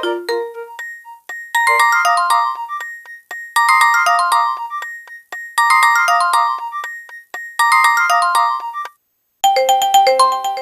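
Nokia 2600 mobile phone ringtone: a short electronic melody whose bright run of notes repeats about every two seconds. It stops briefly about a second and a half before the end, and a different ringtone melody begins.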